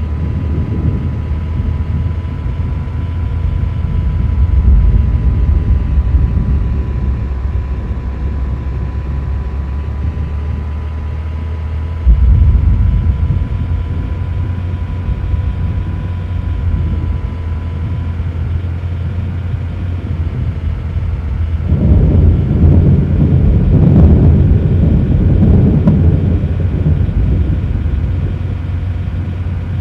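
A loud, uneven low rumble that grows louder twice, with a faint steady high tone that stops about two-thirds of the way through.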